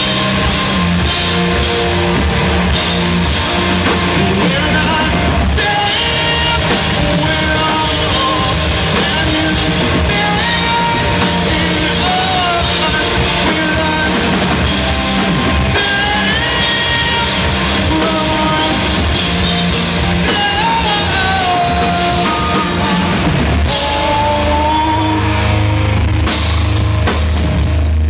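Live rock band playing loudly: two electric guitars over a drum kit, with sliding guitar lines and a steady beat.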